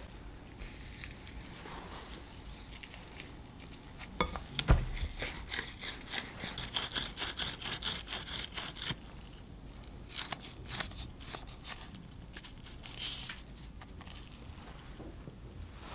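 Gloved hands scooping and squeezing soft mashed-potato dough in a glass bowl: squishing of the dough and crinkly rubbing of disposable gloves, coming in several spells. A single knock comes a little under five seconds in.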